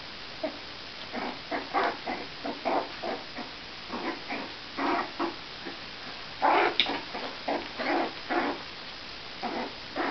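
A four-week-old Jack Russell terrier puppy yapping in play as a hand roughhouses with it: a rapid, irregular string of short little yaps, loudest about six and a half seconds in.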